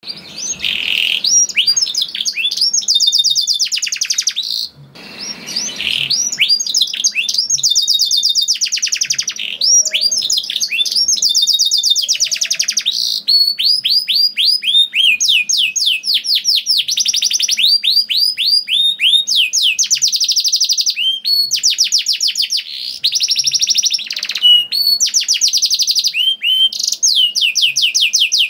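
Domestic canary singing vigorously: a near-continuous song of fast repeated sweeping notes strung into long rolling trills, with a short break about five seconds in.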